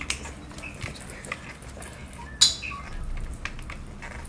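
A few sharp hand claps and slaps, the loudest about two and a half seconds in, over faint room chatter.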